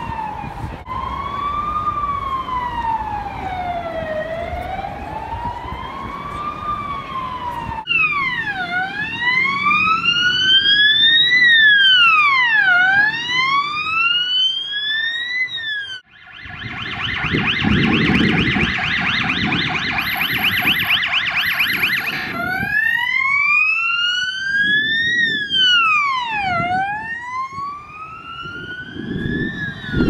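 Hungarian police car siren running through its tones. It starts with a slow wail rising and falling about every three seconds, switches about eight seconds in to a faster, sharper wail, then a rapid yelp for about six seconds in the middle, and returns to the faster wail near the end.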